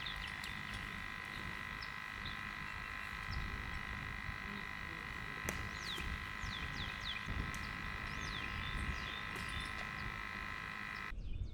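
A riverbank animal chorus: a steady shrill drone with many short falling chirps over it. Low wind rumble on the microphone sits underneath, and the drone cuts off abruptly near the end.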